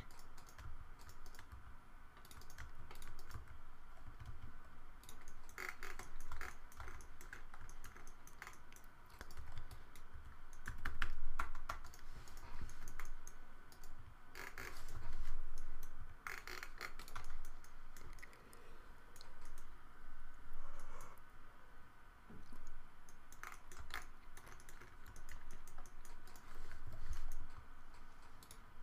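Computer keyboard keystrokes and clicks in irregular clusters, the busiest runs about a third and halfway through, over a faint steady hum.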